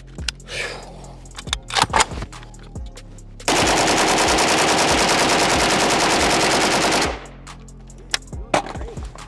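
Pioneer Arms 5.56 AK Sporter rifle firing one long full-auto burst of about three and a half seconds, some 35 rounds at about ten shots a second, that stops abruptly.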